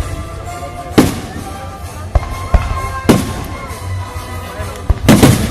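Aerial fireworks shells bursting in a series of sharp booms, about one a second, with a heavier cluster of bursts near the end. Music plays underneath.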